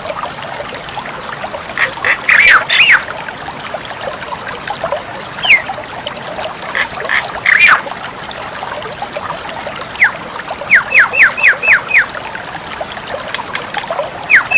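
Javan myna (jalak kebo) calling: short, sharply down-sliding whistled notes in scattered bursts, with a quick run of about six notes near eleven seconds in, over a steady background hiss.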